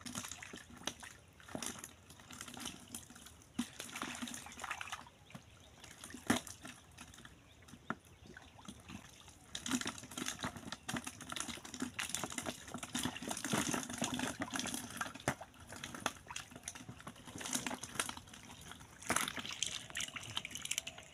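Hands splashing and sloshing in shallow muddy pond water while groping through the mud for fish, with irregular small splashes and trickles that grow busier in the second half.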